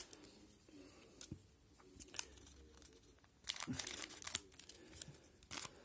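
Shiny foil wrapper of a hockey card pack crinkling as it is handled, with a run of sharp crackles about three and a half seconds in as scissors cut across the top of the pack.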